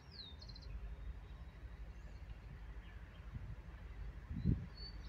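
A songbird sings a short phrase just after the start, a brief whistle sliding down followed by a quick string of clipped high notes, and begins the same phrase again near the end. Underneath is a low steady rumble of wind on the microphone, with a louder gust thump about four and a half seconds in.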